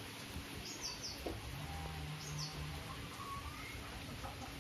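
Birds chirping faintly in the background: a few short, high, falling chirps spaced a second or more apart, over steady low background noise, with a brief low hum near the middle.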